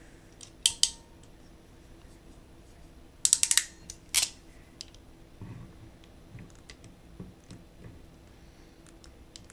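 Sharp clicks and clacks from handling a ratchet crimping tool while an RJ45 modular plug is being pushed into its crimp die: two clicks just under a second in, a quick run of about five clicks a little past three seconds, one more just after four seconds, then fainter taps.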